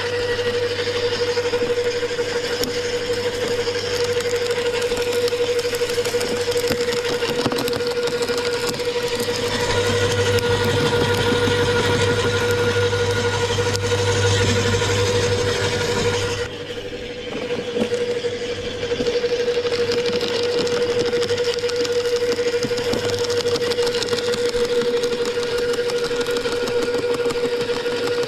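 Wood chipper running with a steady whine and the dense grinding hiss of branches being shredded. Just past halfway the hiss drops away for about two seconds, then the chipping resumes.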